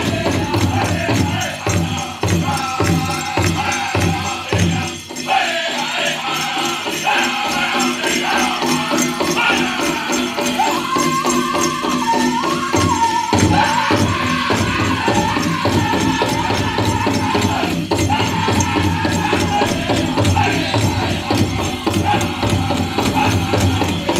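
Powwow drum group performing a chicken dance song: a big drum struck in a steady beat under high-pitched group singing, with the jingling of the dancers' leg bells.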